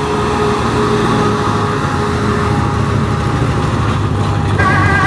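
Vintage Chevrolet pickup truck's engine running low and steady as the truck rolls slowly past. Music comes in near the end.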